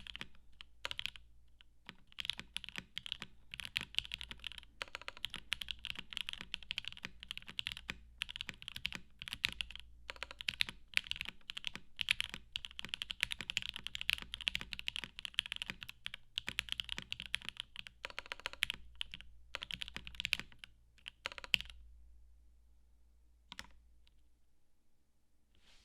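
Fast typing on a custom mechanical keyboard: Alpaca v2 linear switches, lubed with Krytox 205g0 and filmed, on a polycarbonate plate under Cherry-profile PBT keycaps. The typing stops about 22 seconds in, followed by a couple of single keystrokes.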